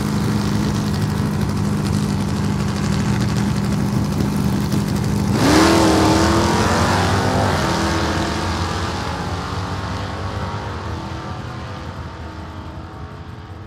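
Car engine sound effect: a steady idle, then about five seconds in a sharp rev rising in pitch, after which it fades gradually away.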